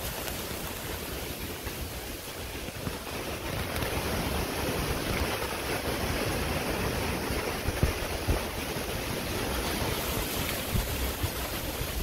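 Wind buffeting the microphone: a steady rushing noise with irregular low rumbles.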